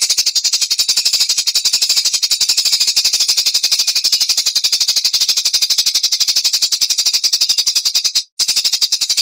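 Small songbird's recorded song: a fast, unbroken machine-gun-like trill of high, dry notes, roughly a dozen a second, cutting off briefly near the end before starting again. It is the rapid-fire 'tembakan' burst prized in contest songbirds.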